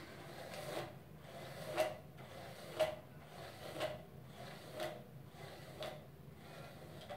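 Hairbrush drawn through long hair in repeated strokes, about one a second, each a short brushing swish.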